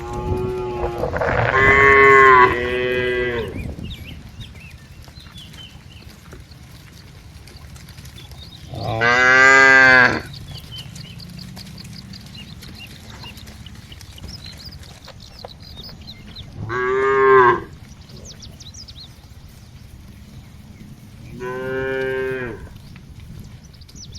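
Cattle mooing: three moos in quick succession, overlapping, in the first few seconds, then three more single moos spaced several seconds apart.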